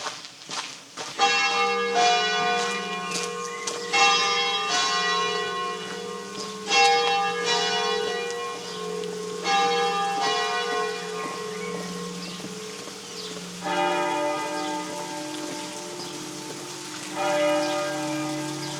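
Church bells ringing: slow, uneven strikes of bells at a few different pitches, each left to ring on and overlap the next. The bells begin about a second in, after a few faint footsteps.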